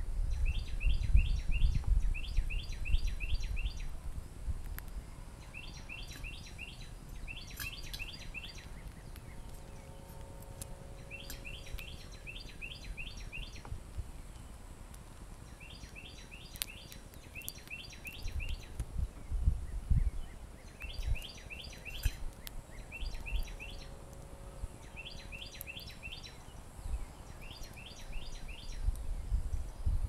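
A songbird singing in bouts, each phrase a quick run of four or five high, sharply slurred notes, repeated two or three times and then picked up again every few seconds. Low rumbles and bumps on the microphone are loudest near the start, about twenty seconds in and near the end.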